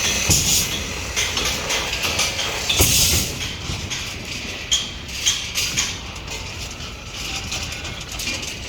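Construction-site noise with scattered sharp knocks and clinks of steel rebar being handled and tied, the loudest about three seconds in, over a steady hiss that fades after the first few seconds.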